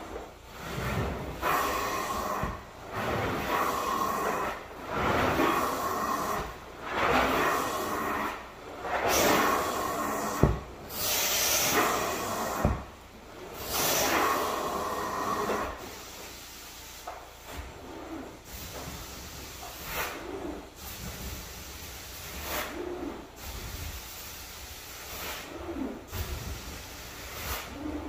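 A cleaning tool drawn over a wool area rug in repeated hissing strokes, about one every two seconds. After roughly the first half the strokes become quieter and shorter.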